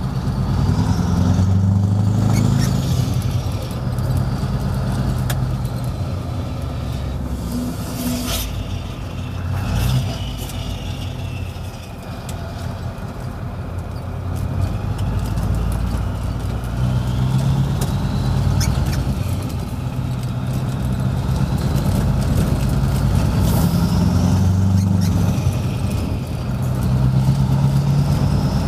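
Scania 164L 580's V8 diesel on a straight-through open exhaust, heard from inside the cab while the truck is driven, pulling hard and easing off several times with a deep, loud exhaust note. A thin high whistle rises and falls above it, and a couple of sharp knocks come about a third of the way in.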